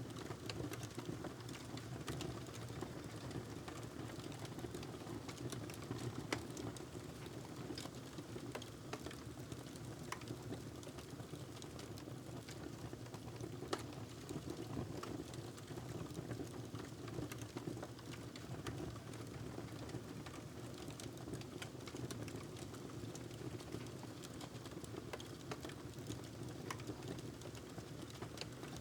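Wood fire crackling in a fireplace: a steady low rumble of flames with frequent small sharp pops and snaps scattered throughout.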